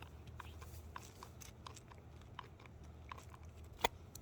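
Faint, irregular small metal clicks and scrapes as a screw and a square nut are fitted by hand through a rail joint bar, with one sharper click close to the end.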